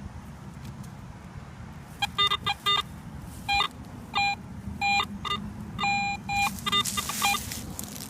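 Metal detector signalling a buried target: a run of short electronic beeps, some higher and some lower in pitch, starting about two seconds in.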